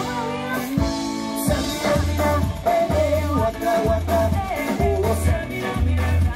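Live band playing: a woman singing into a microphone over electric guitars, bass and a drum kit, with deep bass notes pulsing about once a second.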